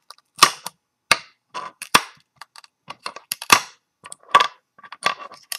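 3D-printed PLA bar clamps clicking and clacking as they are picked up by hand and knocked against each other and the taped print bed: about a dozen sharp, irregular plastic clicks.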